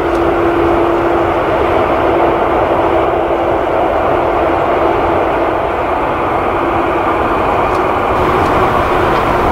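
Boeing 747-400 freighter's four GE CF6 turbofans running at taxi power: a steady rushing drone with a faint held whine.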